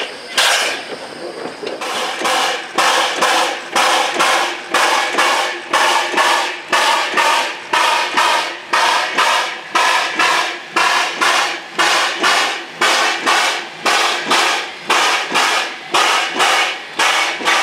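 Steady series of ringing metallic clanks, about two a second, from a steam locomotive being pushed round by hand on a turntable.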